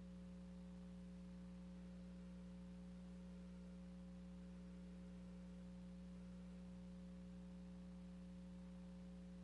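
Near silence with a steady low hum and faint hiss, unchanging throughout.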